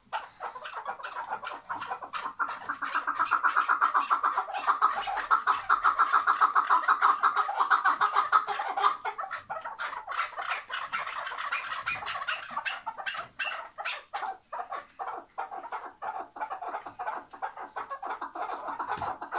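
Chukar partridge calling: a long run of rapid, chattering notes repeated many times a second, loudest in the first half.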